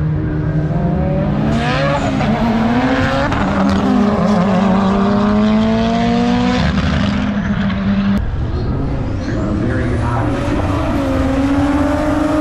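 Two cars roll racing side by side at full throttle, their engines climbing in pitch and dropping back at each gear change.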